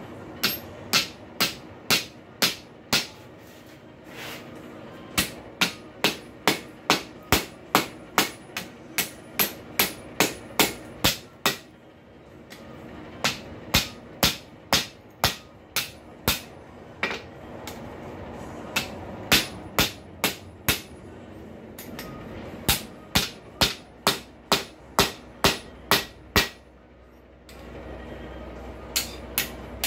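Hand hammer striking a hot rail spike on an anvil, rolling the hinge knuckle around a piece of 5/16 stock. The blows come in runs of about two a second, broken by short pauses, over a steady background hum.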